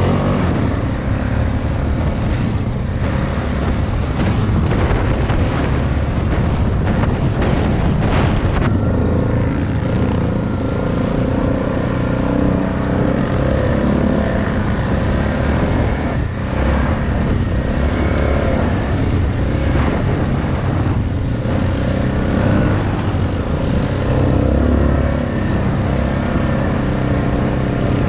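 Dirt bike engine running as the bike is ridden, its pitch rising and falling with the throttle.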